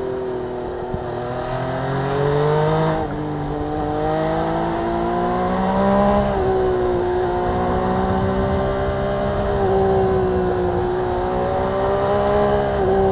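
MV Agusta Brutale 800RR's three-cylinder engine pulling under throttle. The pitch climbs, drops sharply about three seconds in, climbs again to a peak around six seconds, then holds fairly steady.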